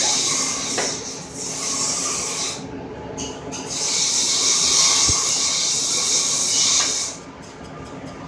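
Cylinder boring bar cutting the bore of an engine block, a steady high-pitched scraping hiss of the tool on the metal. It dips briefly about three seconds in and drops away about a second before the end.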